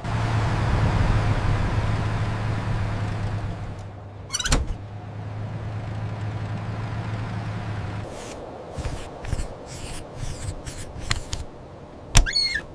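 A vehicle engine runs with a steady hum, at first under a hiss that fades over the first few seconds. There is a sharp knock about four and a half seconds in. The engine cuts off about eight seconds in, and a run of light clicks and knocks follows.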